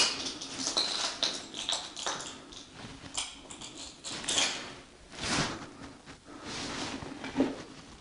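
Footsteps scuffing and crunching irregularly over grit and debris on a bare concrete floor, with a sharp knock right at the start.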